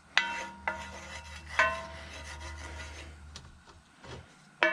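A cast iron skillet knocked about four times, each knock leaving a short metallic ring, with a low steady hum under the first few seconds.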